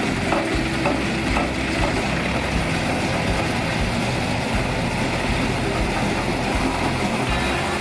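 Engine of a heavy farm machine running steadily.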